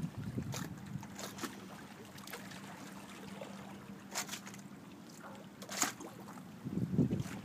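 Small bay waves lapping at the shore in a few separate splashes, over a low wind rumble on the microphone. A faint steady hum runs underneath and stops about six seconds in.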